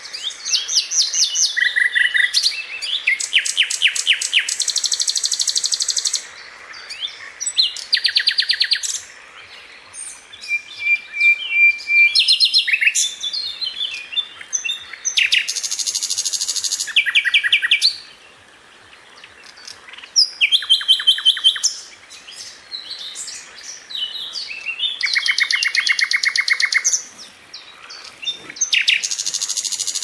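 Common nightingale singing: a string of varied phrases, many of them fast trills of repeated notes, broken by short pauses.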